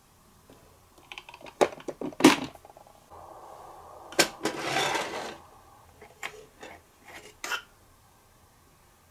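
Small plastic miniature toy-kitchen pieces being handled: light clicks and taps, then a tiny sliding cupboard door scraping along its track about four seconds in, and a few more clicks as a miniature pot is lifted out.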